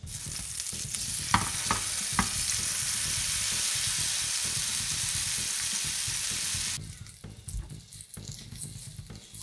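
Marinated tofu cubes searing in hot oil in a frying pan, a loud, even sizzle, with a few sharp knocks about a second and a half in as cubes drop into the pan. Near the end the sizzle drops suddenly to a quieter crackle.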